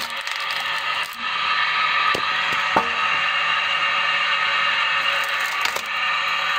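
Log splitting on a homemade wood splitter: the wood creaks and splinters as it is forced onto the wedge, with a few sharp cracks as it gives way. A steady whine runs underneath.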